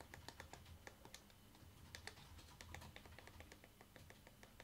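Faint, irregular clicking of the small push buttons on an Insstro C2 RGB LED video light being pressed over and over, several clicks a second, as the colour and brightness are stepped.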